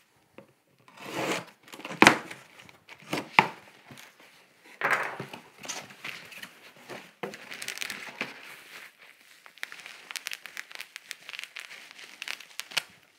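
A cardboard box being slit open with a knife and its flaps pulled back, then cardboard and a plastic bag rustling and crinkling as the packed contents are lifted out. A few sharp knocks and snaps stand out, and the crinkling thickens in the second half.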